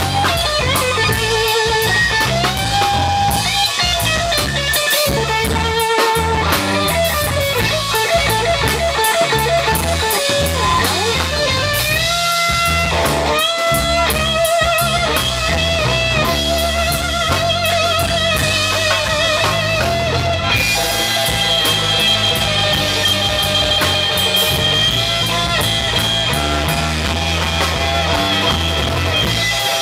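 Live blues-rock trio playing: a Stratocaster-style electric guitar solos with string bends and vibrato over bass guitar and a drum kit. About two-thirds of the way in the guitar settles on a long held high note.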